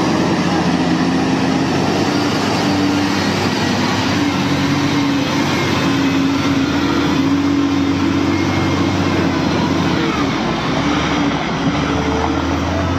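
Diesel engine of a FAW Jiefang heavy dump truck running steadily as the truck crawls through deep mud, its pitch shifting slightly as the driver works the throttle.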